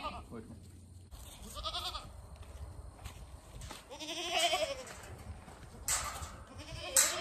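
Goats bleating, four separate calls, the longest about four seconds in. Two sharp knocks near the end.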